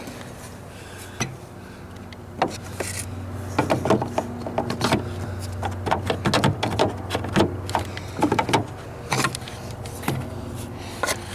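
Parts being fitted back into a car's engine bay by hand: irregular clicks and knocks, starting about a second in and coming thick and fast through the middle, over a steady low hum.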